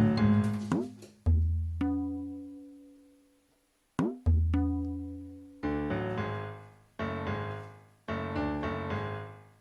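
Background music of plucked string notes that ring and die away, with a brief pause in the middle. A quick upward slide sounds twice.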